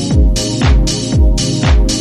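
Electronic dance music with a steady kick drum about twice a second and hi-hats between the beats.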